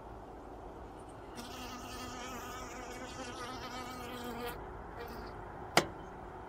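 A honeybee buzzing close by for about three seconds, its pitch wavering as it flies, then fading. Near the end comes one sharp click.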